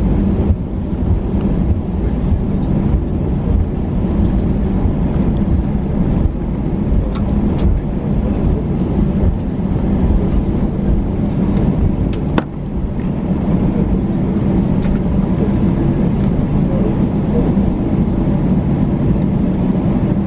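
Cabin noise inside an Airbus A321 on the ground just after landing: a steady, loud rumble of the engines and the wheels rolling. A few sharp clicks and rattles come about seven and twelve seconds in.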